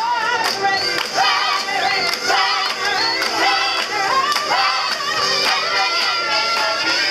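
Choir singing with a woman's lead voice through a microphone and loudspeaker, over the group's steady rhythmic handclaps.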